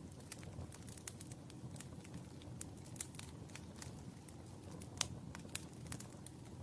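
Burning wood in a fireplace crackling, with irregular sharp pops over a low steady rumble; the loudest pop comes about five seconds in.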